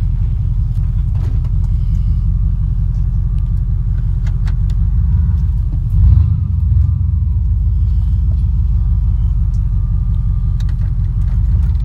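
Steady low rumble of a vehicle's engine and road noise, heard from inside the cab while driving. There is a louder surge or jolt about six seconds in and a few light rattles.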